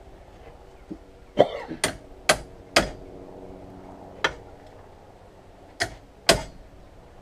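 Hand hammer tapping a steel drift pin set in a bench vise: about eight sharp metal knocks at uneven intervals, some leaving a brief ringing tone.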